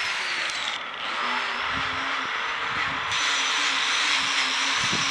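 Handheld power tool running and grinding down an elephant's toenails: a steady motor whine under a gritty hiss. The hiss drops briefly about a second in and gets louder again about three seconds in, as the tool is pressed against the nail.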